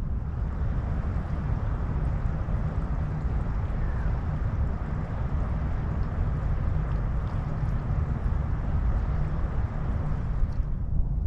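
Wind buffeting the microphone, a steady low rumble, over a constant rushing outdoor noise with a few faint ticks.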